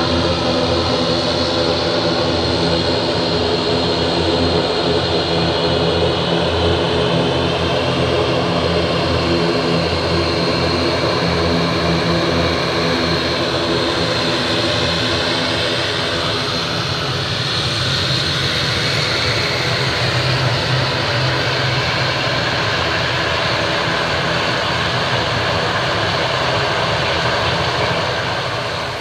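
Twin-turboprop airliner's engines and propellers running as it moves along the runway. A loud, steady drone carries a stack of even propeller tones, and its pitch pattern shifts slightly about halfway through.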